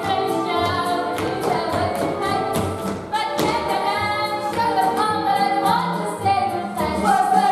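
Stage musical number: several voices singing together over instrumental accompaniment with a low bass line.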